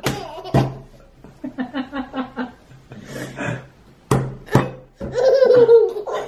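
A baby laughing and squealing, joined by an adult's short rhythmic ha-ha laughter about one and a half seconds in. A few sharp knocks come twice near the start and twice about four seconds in.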